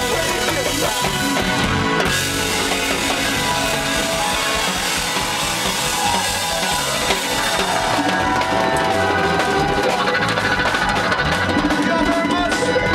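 A live funk band playing, with drum kit, electric guitar and keyboards over hand percussion.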